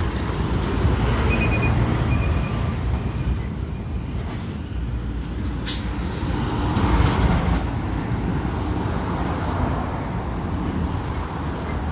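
Road traffic: vehicles passing along the street as a steady low rumble, swelling about seven seconds in, with one sharp click about halfway through.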